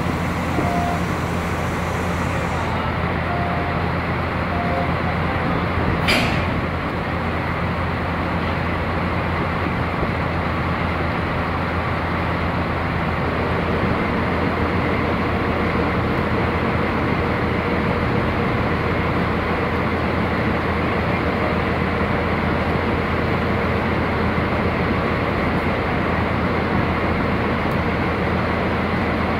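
DD51 diesel-hydraulic locomotive idling steadily at close range, a low even engine drone. A single brief sharp noise comes about six seconds in, and a steady higher hum note joins about halfway through.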